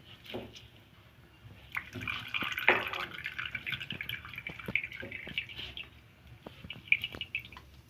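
Cooking oil poured from a plastic bottle into a hot wok, the stream splashing and pattering into the pooled oil from about two seconds in. It dies away after about five seconds, leaving scattered light crackles from the heating oil.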